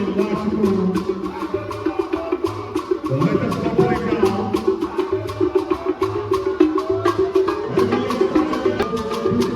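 Background music with a steady beat of sharp, wood-block-like clicks over a pulsing bass line and a melody.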